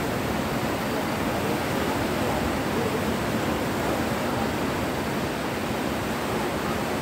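Steady rushing of a fast, muddy river in flash flood.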